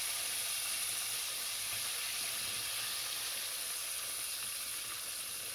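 Chicken pieces deep-frying in hot oil in a pot: a steady sizzle.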